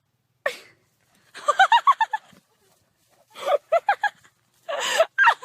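A person laughing in three quick bursts of short, high-pitched pulses.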